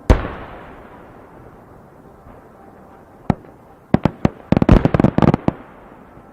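Aerial firework shell bursting with one loud bang that fades away slowly. About three seconds later a single sharp crack comes, then a quick run of a dozen or so sharp cracks lasting about a second and a half.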